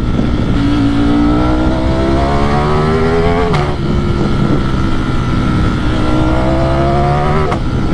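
Ducati Streetfighter V4's 1103 cc V4 engine pulling under acceleration. Its pitch rises steadily, drops sharply at an upshift about three and a half seconds in, then climbs again to a second shift near the end.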